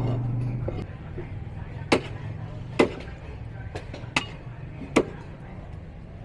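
Heavy cleaver chopping buffalo trotters on a wooden block: four loud, sharp chops less than a second or so apart through the middle, with a few lighter taps between. A steady low hum in the first second stops short.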